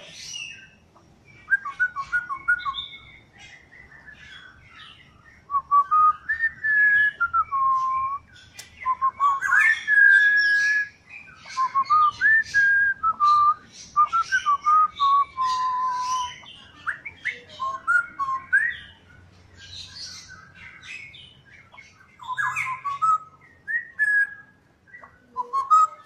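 Straw-headed bulbul (cucak rowo) singing: loud, rich whistled phrases that warble and glide up and down, in bursts of a few seconds with short pauses between them.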